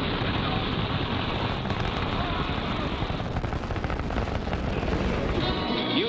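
Rumbling, crackling roar of a rocket launch on old film sound. About five seconds in it gives way to music.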